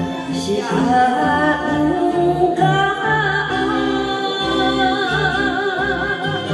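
A woman singing a Japanese song into a karaoke microphone over the karaoke backing track, holding long notes with vibrato above a steady bass beat.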